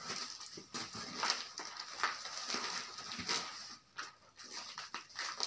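Plastic wrapping rustling and crinkling as parcels are handled in a cardboard box, with scissors cutting into a plastic-wrapped package about four seconds in.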